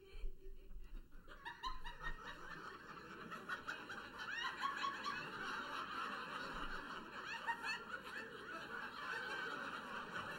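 Audience laughing, a crowd of many voices that swells in about a second in and keeps going.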